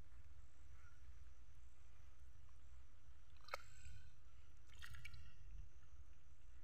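A hooked fish splashing at the water's surface: a short splash near five seconds in, after a single sharp click about three and a half seconds in, over a steady low rumble.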